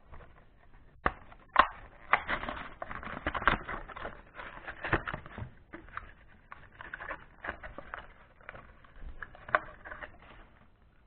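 Plastic blister pack and its cardboard backing being torn open by hand: continuous crinkling and crackling, with a couple of sharp snaps about a second and a half in.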